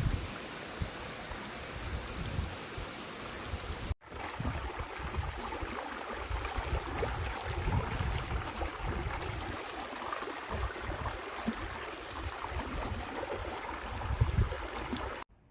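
Wind gusting over the microphone: uneven low buffeting under a steady hiss. The sound breaks off briefly about four seconds in and stops suddenly near the end.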